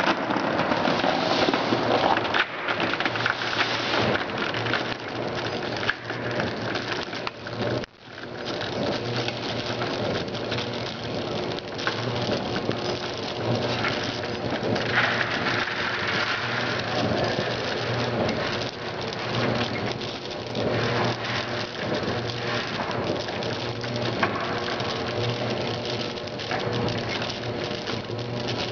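Pieces of gum in a Tecweigh feeder's stainless steel hopper tumbling and pattering continuously, like heavy rain, with a steady low hum underneath. The sound drops out briefly about eight seconds in.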